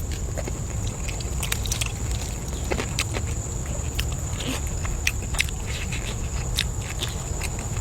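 A person eating close to the microphone: biting and chewing with scattered sharp clicks, over a steady low rumble and a thin, high, steady tone.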